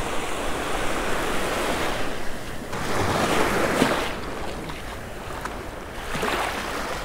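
Small waves washing in over shallow water at the shoreline, with wind on the microphone. The wash swells louder about three seconds in and again near the end.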